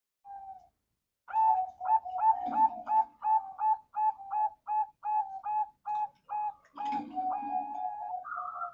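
Male zebra dove (perkutut) cooing: a quick run of short, clipped notes, about three a second, that runs into a few longer drawn-out notes near the end.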